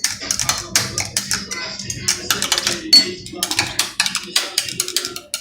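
Children drumming in rapid, uneven sharp hits, several a second, with no steady beat.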